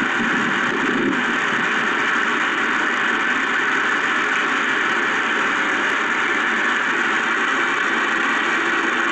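A steady, even hiss like static.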